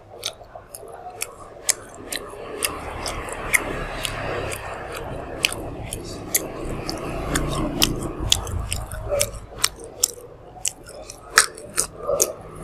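Chewing grilled pork intestines with the mouth full: a steady run of many sharp, wet mouth clicks and smacks over soft chewing.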